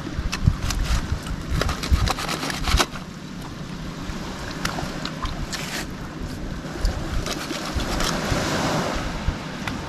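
Wind gusting on the microphone aboard a small fishing boat, over a wash of sea water, with scattered clicks and knocks, most of them in the first three seconds and a stronger gust near the end.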